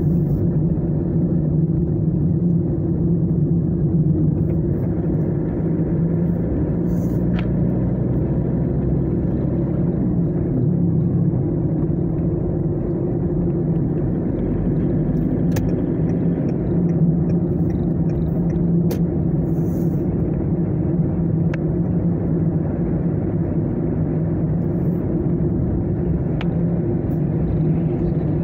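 Steady engine and tyre rumble of a car cruising on a motorway, heard from inside the cabin as an even low hum, with a few faint clicks.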